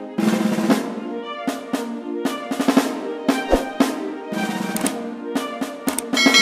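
Background music with a steady drum beat over sustained instrumental tones.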